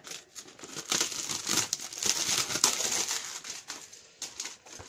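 Plastic shrink wrap crinkling and crackling as it is torn and peeled off a board game box, starting about a second in.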